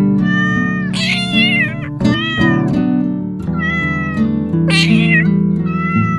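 A cat meowing again and again, about six short meows, some bending up and down in pitch, over background music.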